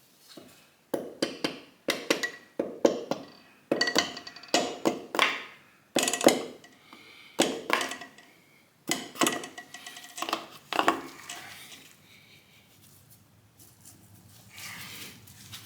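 Metal tools and engine parts clanking and clinking during engine disassembly: a quick run of sharp knocks with a ringing metallic edge for about ten seconds, then quieter near the end.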